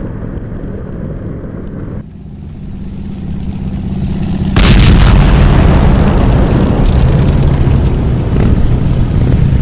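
Motorcycle engine running, with heavy wind rumble on the microphone. About two seconds in the sound drops away and then builds again; about halfway a loud rush of wind and engine noise starts abruptly and carries on.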